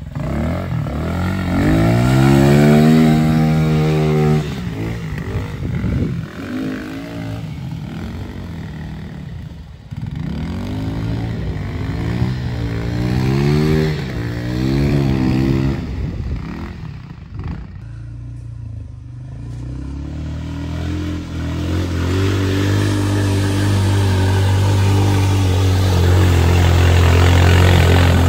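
ATV engines revving hard through mud holes, the engine note climbing and dropping again and again as the quads churn through. Near the end a steadier, sustained high-revving engine note holds as an ATV pushes through deep mud.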